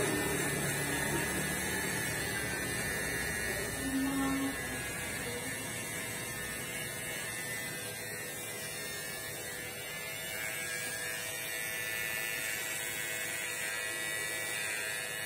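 Electric hair clipper running with a steady buzz.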